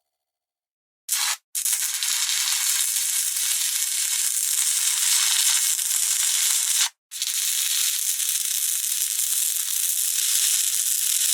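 Electric sparks crackling and hissing: a short burst about a second in, then a long thin crackle lasting about five seconds, a brief break, and another of about four and a half seconds.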